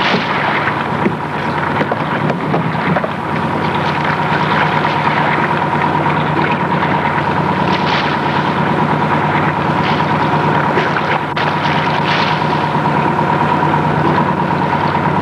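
Lobster boat's inboard engine running steadily, with a steady high-pitched whine over it and a few light knocks.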